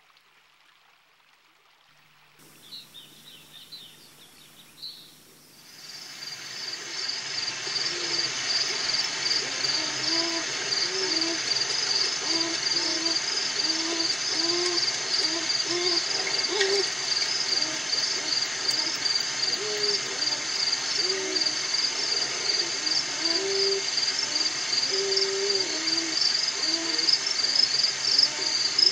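Near silence, then a night-time nature chorus fades in a few seconds in: a steady, fast-pulsing high insect trill with repeated low hooting calls beneath it.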